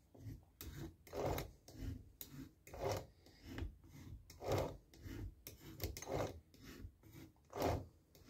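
Folded cloth rag rubbed along the teeth of a chainsaw chain on its bar: about a dozen short scrubbing strokes, wiping off excess bar oil before the chain is filed.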